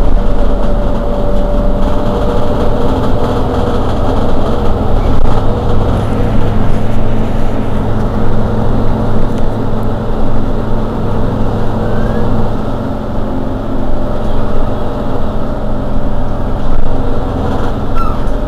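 Mercedes-Benz Citaro G C2 articulated city bus's diesel engine idling steadily at a standstill: a constant low drone with a thin steady whine above it.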